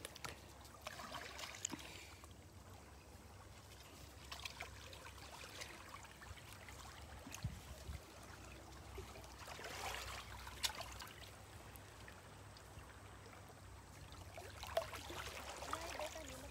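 Small waves lapping faintly over pebbles and rocks at the water's edge, swelling softly every few seconds.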